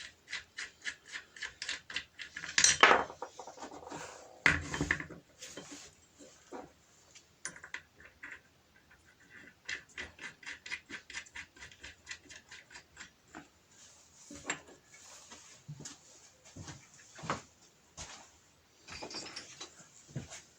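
Small steel parts and clamps being handled and set in place on a workbench: metal clinks, knocks and runs of quick light clicks.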